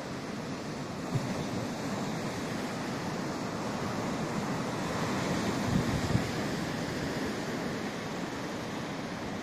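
Baltic Sea surf breaking and washing up a sandy beach, a steady rushing of waves. Wind gusts on the microphone add a couple of short low bumps a little past halfway.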